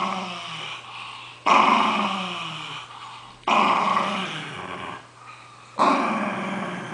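Small dog growling in repeated bouts while chewing a rugby-ball toy. New growls break out about every two seconds, each starting loud and fading away.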